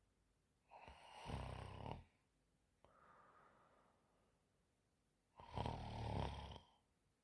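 A sleeping woman snoring: two loud rattling snores on the in-breath, each lasting about a second, one near the start and one near the end, with a soft out-breath between them.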